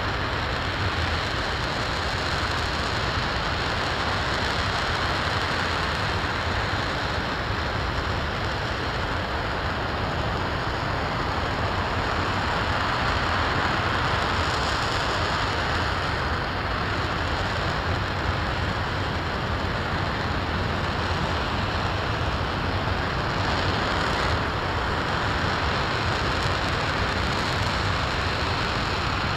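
RS-25 liquid-hydrogen/liquid-oxygen rocket engine firing steadily during a static test: a continuous, even rush of noise that does not change.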